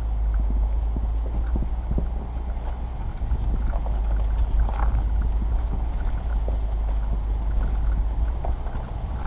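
Vehicle driving slowly up a rough trail over rock and snow: a steady low rumble with wind on the microphone, and scattered crunches and knocks from the tyres on stones and snow.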